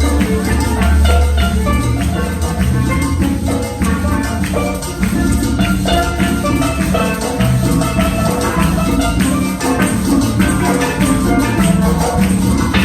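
Upbeat instrumental Latin-style music from a church music group: a melody of pitched notes over bass, drums and shaken percussion, with a steady beat.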